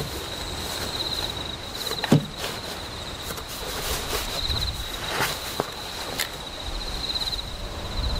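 Insects chirping in a steady pulsing trill, with scattered knocks and rustles of gear being packed onto a wooden shelf; the loudest knock comes about two seconds in.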